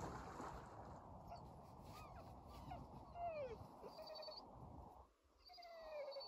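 Ducks calling: a series of about six short whistled calls, each falling in pitch, over a steady low rushing noise that drops away about five seconds in.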